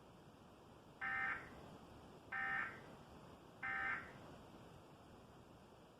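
Emergency Alert System end-of-message signal: three short bursts of SAME digital data tones, evenly spaced about 1.3 seconds apart, marking the end of the alert.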